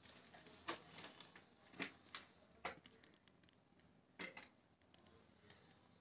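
Near silence broken by a few soft, scattered clicks and taps from a handheld phone being handled and turned.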